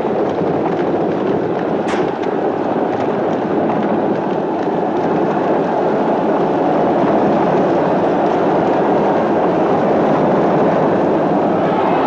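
Horse-drawn racing chariots thundering along: a loud, dense, steady rumble of galloping hooves and chariot wheels, with one sharp crack about two seconds in.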